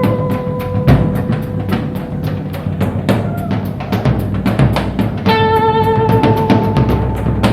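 Live blues-rock band playing an instrumental passage: a drum kit keeps a steady driving beat over bass, while an electric guitar holds long sustained notes, one fading early and another starting about five seconds in.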